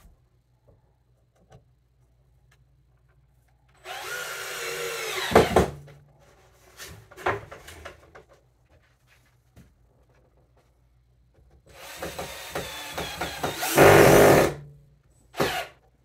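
Cordless drill driving screws into scrap tongue-and-groove floorboard: two runs of about two seconds each, each louder near its end as the screw drives home, then one short burst just before the end.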